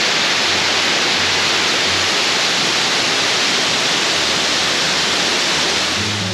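Loud, steady rushing water, even and unbroken; guitar music comes in near the end.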